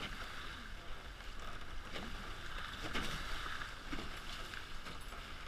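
Hobie 16 catamaran hulls slicing through choppy water: a steady rush and hiss of water along the hulls, with a few sharper slaps of spray, over a low rumble.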